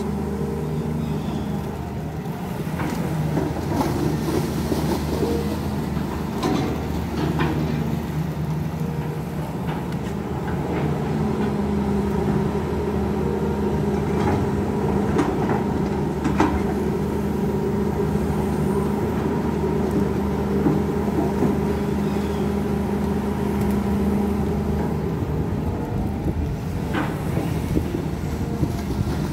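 Diesel engine of a Volvo long-reach excavator running under load while it digs and swings its arm. Its note strengthens and eases as the arm works, with a few sharp knocks along the way.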